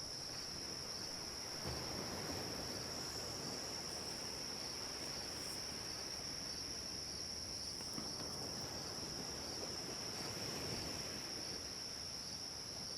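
Ocean-wave ambience: a soft, even wash of surf that swells gently a couple of times, with a steady high-pitched chirring held above it.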